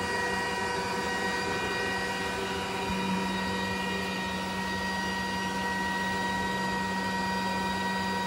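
CO2 laser cutter running while it cuts: a steady machine hum of its fans and motors, with several steady tones over it. A low hum grows stronger about three seconds in.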